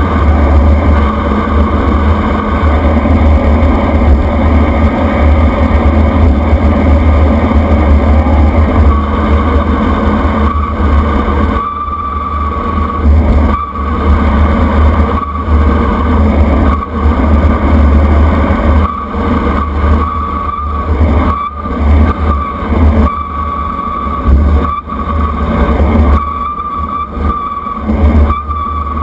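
Loud wind roar and buffeting over a handlebar-mounted camera's microphone on a road bike descending paved road at speed. From about twelve seconds in it comes in gusts with short lulls, and a thin steady whine runs underneath.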